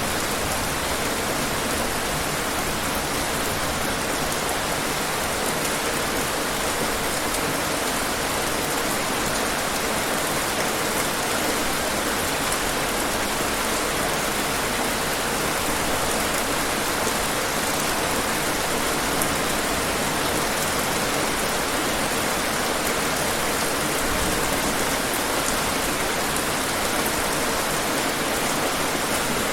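Steady rain falling and pattering on hard urban surfaces, a dense even hiss with no breaks.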